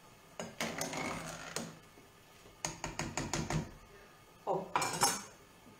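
A quick run of sharp clicks and clinks, about seven in a second, from a kitchen utensil being handled against a pot on the stove.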